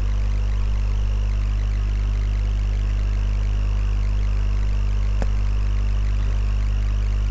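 Steady low electrical hum in the recording, with a single mouse click about five seconds in.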